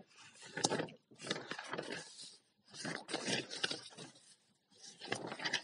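Faint rustling and scraping noises in several short bursts, each lasting under a second.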